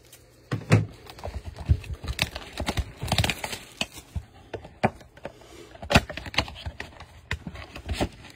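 A cardboard blaster box of trading cards being handled and opened: irregular taps, knocks and rustles of cardboard as the box is tipped and its flaps pulled apart, the sharpest knock about six seconds in.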